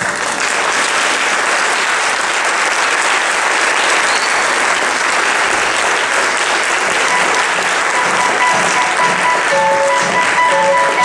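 Theatre audience applauding steadily right after a song ends. From about seven seconds in, music starts up again quietly under the clapping.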